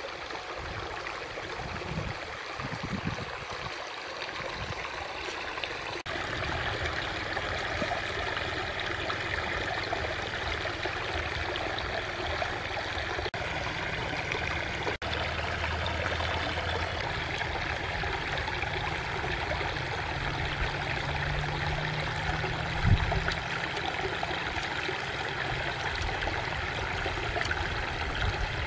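Shallow stream trickling and babbling steadily, with one short low thump late on.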